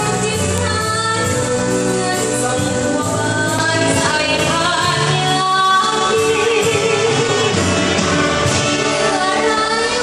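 Live luk thung band playing: a woman sings over a backing of brass, saxophones and keyboard.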